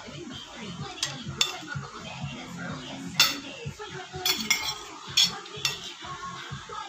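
Stainless-steel spoon and fork clinking against ceramic plates while serving noodles. There is a string of sharp clinks, the loudest about three seconds in.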